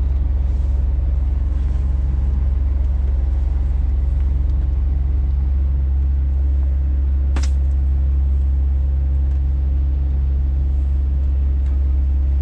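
Scania truck's diesel engine droning steadily inside the cab while the truck is driven at an even speed, with a single sharp click about seven seconds in.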